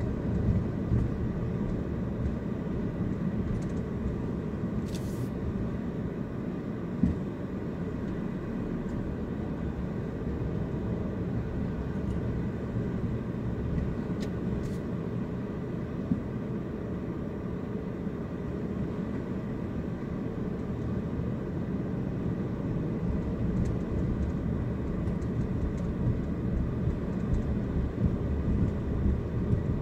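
Steady low rumble of a car's engine and tyres heard from inside the cabin while driving slowly, with a few faint clicks and a small knock about seven seconds in.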